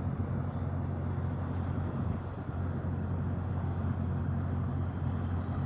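Steady low vehicle engine hum with a wash of road noise, the engine note holding even with no revving.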